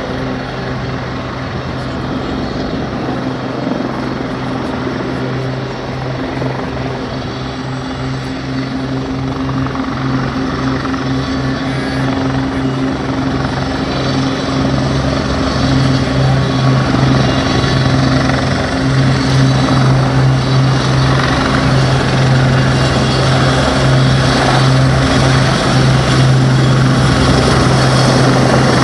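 Westland Lynx helicopters flying in close: a steady rotor and turbine drone that grows gradually louder as they approach and hover near the apron.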